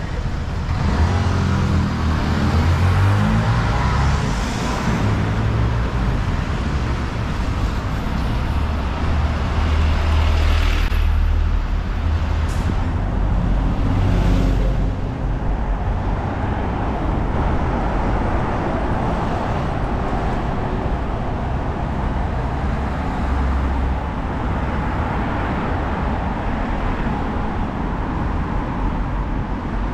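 Busy city street traffic: a steady low rumble of engines and tyres, with vehicles passing close by and swelling louder now and then.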